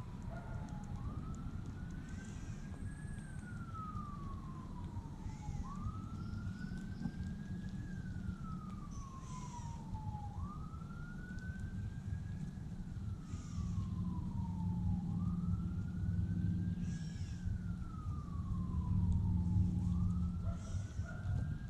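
Emergency vehicle siren in wail mode, its pitch slowly rising and then gliding down about five times in a row. A low steady rumble runs beneath it.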